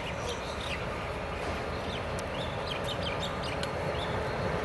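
Diesel locomotives hauling a coal train, a steady low engine rumble that slowly grows louder as the train approaches. Birds chirp several times over it.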